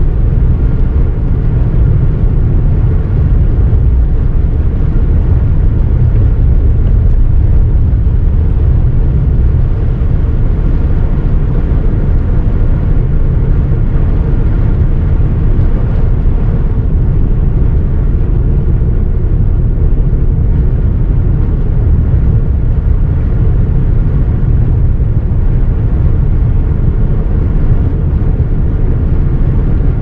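Car driving on a snow-covered road in a blizzard: a steady, loud low drone of road, engine and wind noise that does not change.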